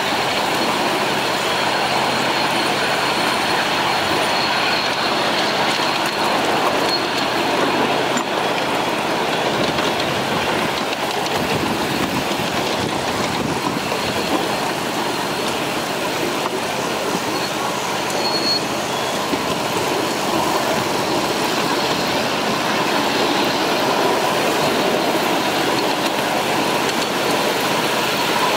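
Miniature ride-on train rolling along its track: a steady rumble and rattle of the small cars' wheels on the rails.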